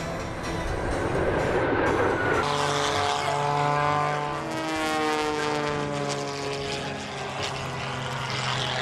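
A rushing jet roar for the first couple of seconds. It then changes abruptly to the piston engine and propeller of an aerobatic biplane flying past low, its pitch falling steadily as it goes by.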